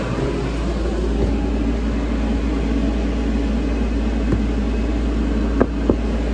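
Steady low machine drone, with a few light clicks in the second half.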